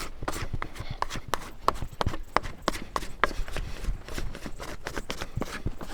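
Very wet, sticky brioche dough of flour and eggs being slapped and folded by hand on a work surface (the Bertinet method): sharp wet smacks and sticky slaps, several a second in an uneven rhythm. The dough is still sticky and weak, with its gluten not yet developed.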